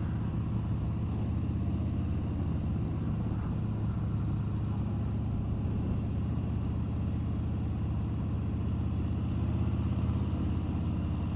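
Motorcycle engine running at a steady cruise, a low even drone with road and wind noise, heard through a helmet-mounted microphone.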